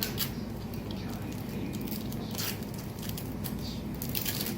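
Plastic candy packets being handled and torn open, crinkling in a few short rustles, over a steady low hum.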